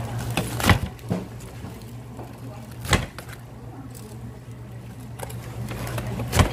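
Kitchen work at a fried-chicken fryer stall: three loud, sharp knocks a couple of seconds apart, with lighter clicks and clatter between, over a steady low hum.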